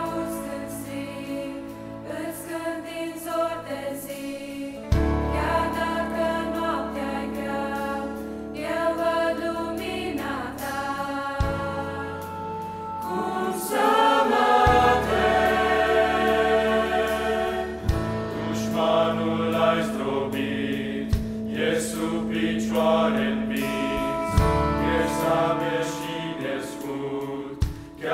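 Mixed youth choir singing a Christian hymn in Romanian in several parts, over instrumental accompaniment with held low notes and a deep bass note struck every few seconds.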